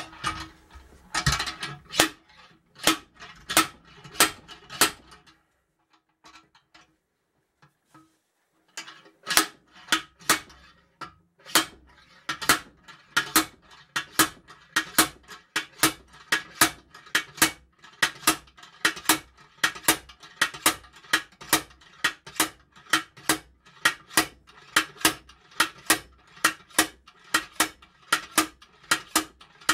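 Slide hammer of a blind bearing puller striking again and again, sharp ringing metal clanks about one and a half a second, with a pause of a few seconds near the start. The hammer is drawing a swingarm pivot bearing out of its bore.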